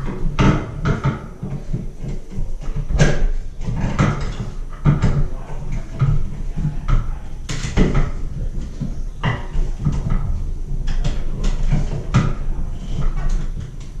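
Electrical cable being pulled and fed through a plastic electrical box set in a wall, with irregular knocks, scrapes and rustles as the wire and box are handled.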